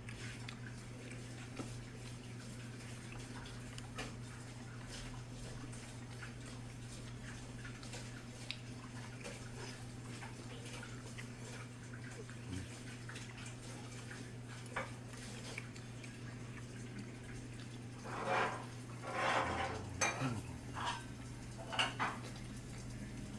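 Light clinks of chopsticks and dishes at a table over a steady low hum, with a few louder short clatters near the end.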